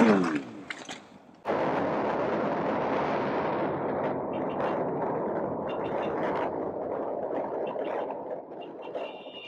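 The tail of a motorcycle crash against a car, a short scraping noise falling in pitch, then after a cut a steady rush of wind and road noise from a motorcycle riding at highway speed, picked up by a camera mounted on the bike.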